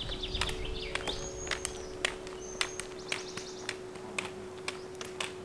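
Trekking pole tips clicking on asphalt, about three sharp taps a second in an uneven rhythm, as two hikers walk, with a few short bird chirps.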